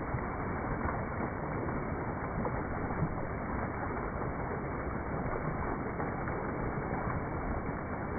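Steady rushing of flowing water from a creek or small waterfall: an even, unbroken noise.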